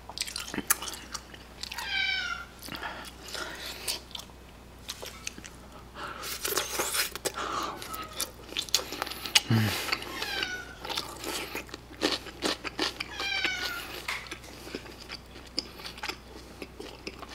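A house cat meowing a few times, short falling calls, over close-up chewing and crunching of fried sweet-and-sour pork in cheese sauce, with sharp clicks throughout.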